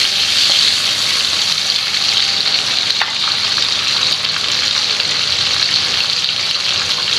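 Prawns, tomato and green chillies frying in hot oil in a frying pan: a steady sizzle.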